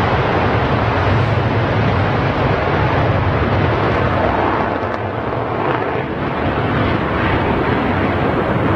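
Twin jet engines of an F-15E Strike Eagle on the runway: a loud, steady jet roar that eases slightly for a moment about halfway through.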